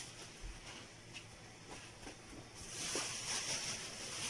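Faint crunching and rustling of coarse salt as a hand presses it down over a fish in a baking dish. A steady high hiss comes in about two and a half seconds in.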